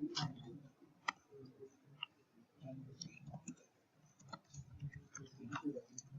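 Scattered clicks of computer input at a desk, single sharp clicks about one and two seconds in and a quicker run of them in the last couple of seconds.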